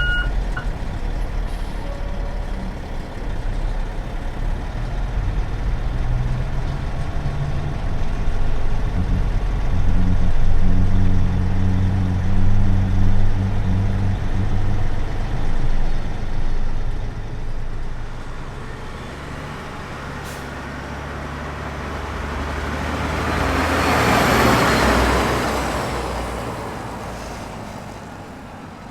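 Diesel engine of an Oshkosh 8x8 military truck running, its backup beeper cutting off just after the start. The low engine note swells and shifts in the middle, then thins out, and near the end a broad rushing sound builds up and fades away.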